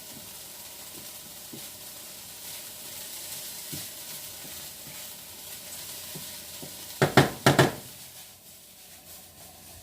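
Onions and peppers frying in a pan with a steady sizzle. About seven seconds in come three or four sharp, loud clacks, the loudest sounds here, after which the sizzle is quieter.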